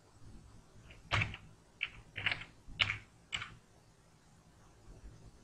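Computer keyboard keys being typed: about half a dozen separate keystrokes over roughly two and a half seconds, starting about a second in.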